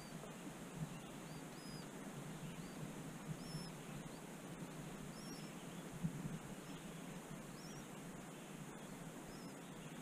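Nestling songbirds begging for food, with thin, high-pitched chirps about once a second, and a soft thump about six seconds in.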